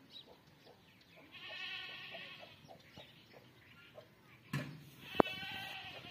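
A farm animal's bleat-like call, heard twice, the first about a second in and the second near the end. Between them come a knock and a sharp click. Under it all are faint, quick squirts of a buffalo's teat being hand-milked into a steel bucket.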